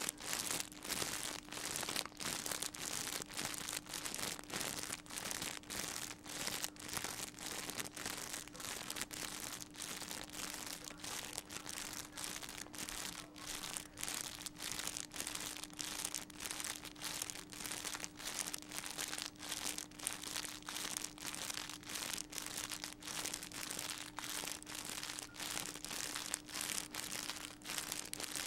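Continuous crinkling, crackling noise with rapid uneven flutter, over a faint steady hum.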